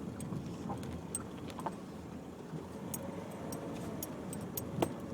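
Cabin noise of a Nissan X-Trail driving slowly along a rough unsurfaced track: a steady engine and tyre rumble with scattered small rattles and clicks from the interior, and one sharper knock near the end.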